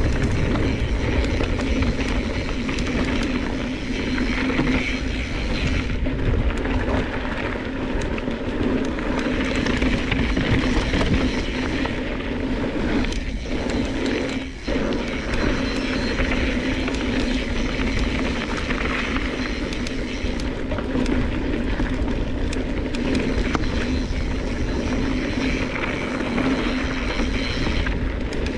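A mountain bike rolling fast down a rocky dirt trail: steady rumble of wind on the microphone and knobby tyres on loose stones, with the bike rattling over the rough ground. A steady low hum runs under it, with a brief dip about halfway.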